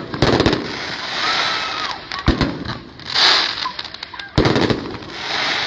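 Aerial fireworks going off: sharp booms about every two seconds, with crackling between them.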